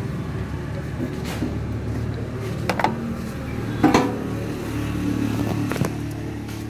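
Mahindra Yuvo 575 DI tractor's diesel engine idling steadily, with about four short metallic knocks, the loudest a little past the middle.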